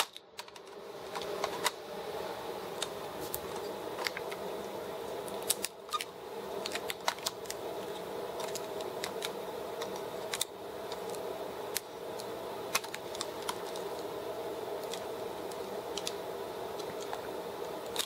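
Scattered small clicks and taps of laptop parts being handled as the plastic cover and the CPU heat sink are pried up and lifted out. A steady background hum runs underneath.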